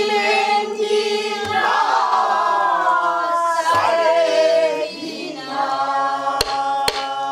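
Several voices singing a long, drawn-out pansori phrase in unison, the pitch sliding and wavering on held notes. A buk barrel drum is struck with a stick about a second and a half in and twice near the end, keeping the rhythmic cycle.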